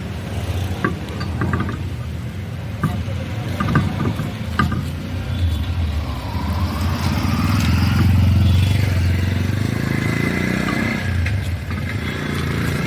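A motor vehicle's engine running nearby, swelling louder around the middle, with a few sharp clicks and knocks in the first half.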